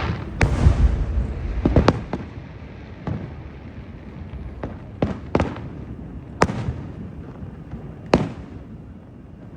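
Aerial fireworks bursting: a string of sharp bangs, each followed by a trailing echo, over a low rumble. The bangs come thickest in the first two seconds, then single reports every second or so.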